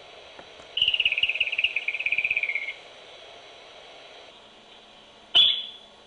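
Groundhog (woodchuck) whistling, heard through a baby monitor: a rapidly trilled whistle of about two seconds that drops slightly in pitch, then a short, sharp single whistle about five seconds in.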